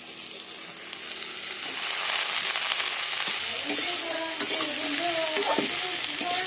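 Kundru (ivy gourd), potato and mahua fruit sizzling in hot oil in a pan for a dry curry. The sizzle gets suddenly louder about two seconds in, and a spoon scrapes and knocks against the pan as it is stirred.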